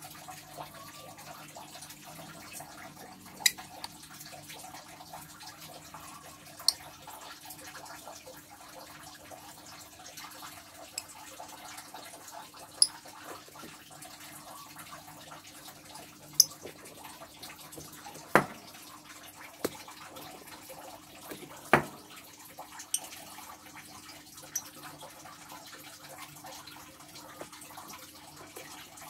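Scattered sharp clicks and taps, about a dozen at irregular intervals, over a faint steady hum.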